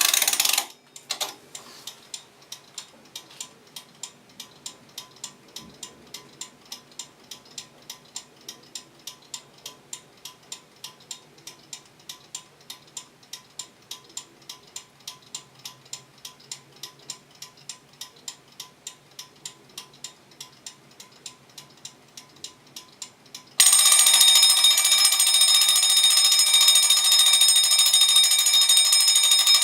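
Smiths Model I.T.1 interval timer from the 1950s: a brief clatter at the start, then its clockwork ticking evenly about three times a second for over twenty seconds. Near the end the timer runs out and its electric bell starts ringing loudly and continuously, the bell signal that marks the end of the set interval.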